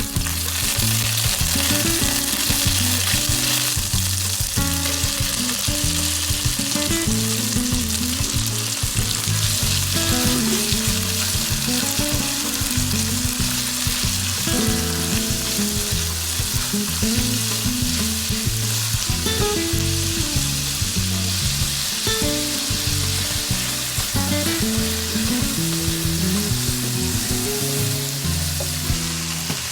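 Chicken and vegetables sizzling in hot oil as they are stir-fried in a pan, a steady hiss.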